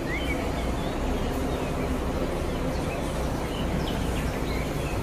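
Marcopolo double-decker coach's diesel engine running steadily with a low rumble.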